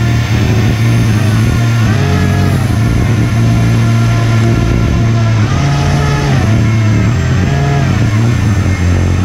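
Electric server fans on an RC hovercraft running hard: a steady low hum that steps up and down, with a higher whine that rises and falls in pitch over and over as the throttle is worked.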